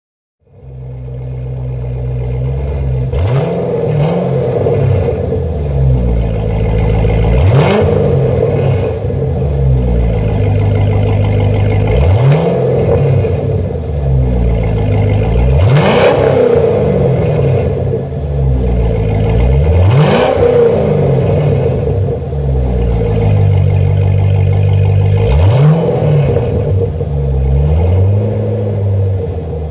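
2005 Chevrolet Corvette's LS2 V8 through aftermarket clone Super 10 chambered mufflers, idling and blipped repeatedly. Each rev rises sharply and falls back to idle, about every four to five seconds. It starts about half a second in.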